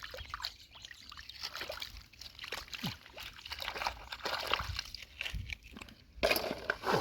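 Hands working through wet mud and shallow water while picking out clams: irregular squelching, small splashes and sloshing, busier near the end.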